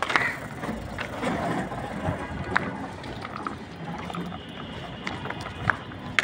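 A child's bicycle with training wheels rolling over rough concrete, a steady scraping rattle with a few sharp clicks, loudest in the first couple of seconds while the bike is close.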